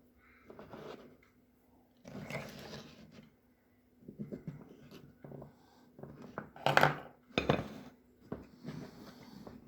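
Eating and handling raw oysters close to the microphone: irregular short clicks and scrapes of oyster shells and utensils, with a few louder noisy bursts, the loudest about seven seconds in.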